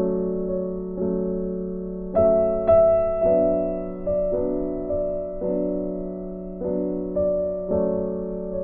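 Background music: slow piano chords, a new chord struck about once a second and left to ring and fade.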